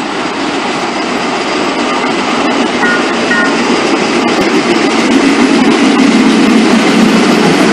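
Yellow self-propelled overhead-line maintenance rail vehicle running slowly along a station track toward the listener, its engine and wheels making a steady rumble that grows louder as it nears. A few brief high squeaks come about three seconds in.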